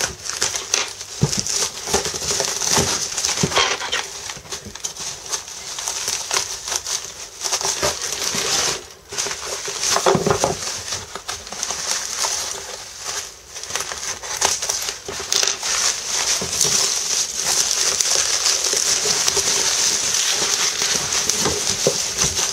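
Plastic bubble wrap and cardboard packaging crinkling and rustling as they are cut with small scissors and handled while a parcel is unpacked, with many small crackles and clicks and a steadier stretch of crinkling near the end.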